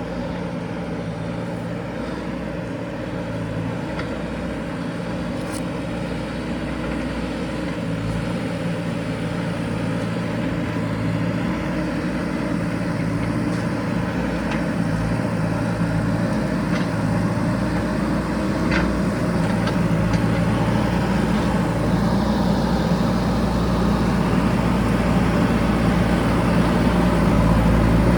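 JCB backhoe loader's diesel engine running steadily, growing gradually louder over the stretch, with a few faint clicks.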